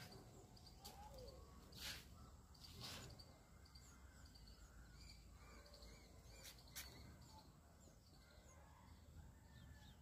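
Faint outdoor ambience: distant birds chirping and calling over a low steady rumble, with a few louder short calls about two and three seconds in and twice near seven seconds.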